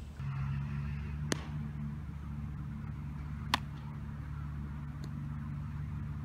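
Two sharp cracks from a baseball ground-ball drill, the second louder: a bat hitting the ball, then about two seconds later the ball smacking into the fielder's glove. Under them runs a steady low hum.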